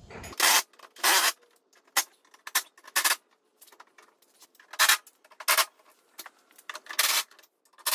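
A series of short scuffing, rustling noises, about seven, irregularly spaced, with no engine, motor or tool running.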